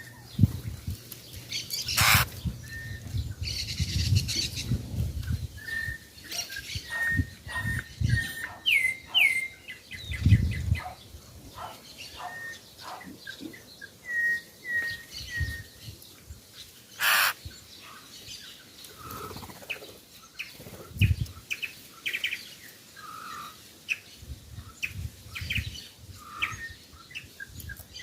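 Several birds chirping with short, repeated calls, mixed with scattered sharp clicks and low thuds.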